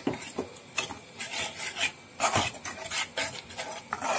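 Spatula stirring and scraping thick masala gravy around a kadai, in a string of short scraping strokes at uneven spacing.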